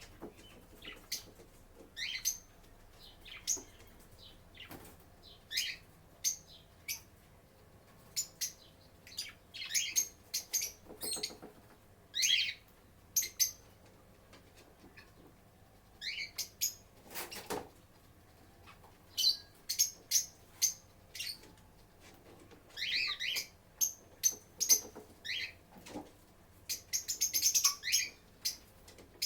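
Lovebirds chirping in short, high, irregular calls, coming thicker near the end, with a sharp click about two-thirds of the way through.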